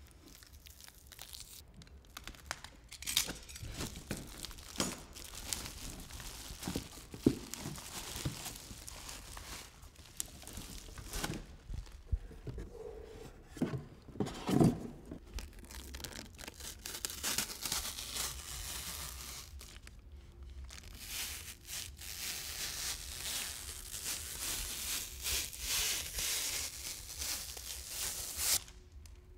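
Plastic wrapping crinkling and cardboard box inserts rustling as a Tesla wall charger and its cable are handled in their packaging, with scattered knocks of the unit against the box. The crinkling grows denser and steadier in the second half and stops just before the end.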